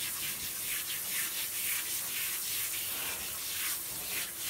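Handheld shower spraying water onto a wet Yorkshire terrier's coat as it is rinsed: a steady hiss that swells irregularly about twice a second as hands work the water through the fur.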